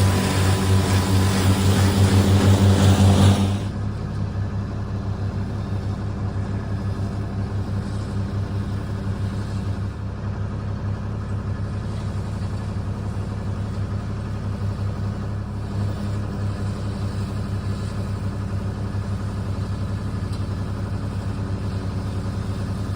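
Remote-control lawn mower running steadily under load with a low, pulsing drone. It is louder and rougher for about the first three and a half seconds, then drops to a quieter, even run.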